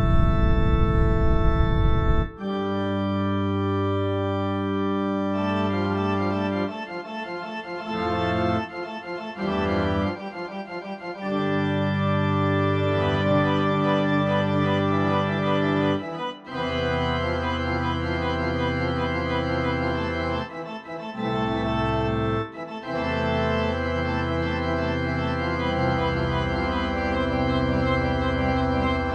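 Organ music: sustained chords held for a few seconds each, changing with brief breaks between them, with a deep low register under much of it.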